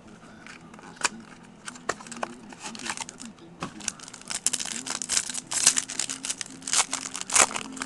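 Crinkling and crackling of a clear plastic trading-card pack wrapper and cards being handled, growing denser and louder about halfway through, over faint background music.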